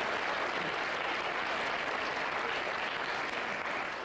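Studio audience applauding, a steady even wash of clapping that holds at one level throughout.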